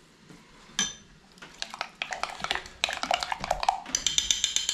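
A utensil stirring a thick sauce in a bowl, clinking and scraping against the bowl. After a single knock it settles into rapid strokes that get quicker and more even near the end.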